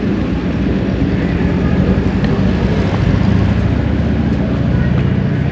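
Engine of heavy road-construction machinery running steadily, a low drone that grows a little louder through the middle.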